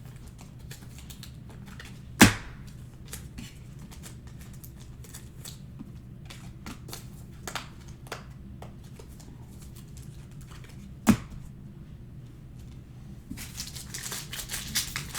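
Trading cards and packs being handled on a table: light clicks and taps of cards, with two sharper knocks, about two seconds in and again about eleven seconds in. Near the end comes the crinkling of a foil card pack wrapper being torn open.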